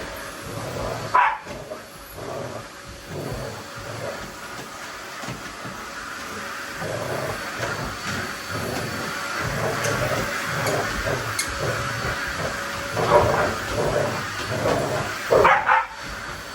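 A vacuum cleaner running steadily while a dog barks at it, with a sharp bark about a second in and louder barks near the end.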